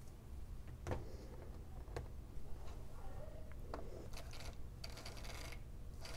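A few light clicks and taps as a model steam locomotive is set down on the track and its wheels are fitted onto the rails, over a faint low hum.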